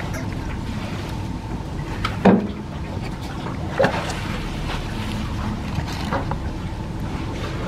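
Steady low rumble of wind on the microphone outdoors, with a few brief sounds on top, the loudest about two seconds in.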